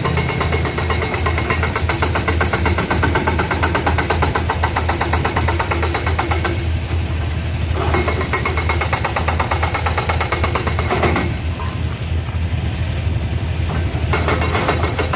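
Komatsu PC210 hydraulic excavator at work, its diesel engine running with a steady low hum. Three spells of fast clattering come and go over it: a long one at the start, a shorter one in the middle and another near the end.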